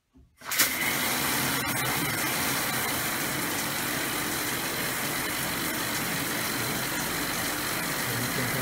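Water spraying from a newly installed Speakman shower head: the water comes on about half a second in, then runs as a loud, steady hiss.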